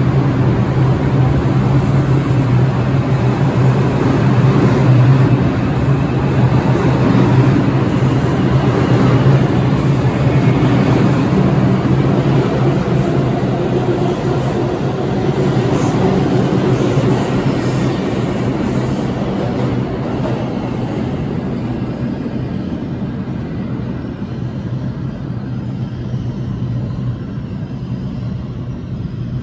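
New York City subway train pulling out of an underground station, with a steady low hum over a rumbling rattle. The sound fades over the last ten seconds or so as the train runs off into the tunnel.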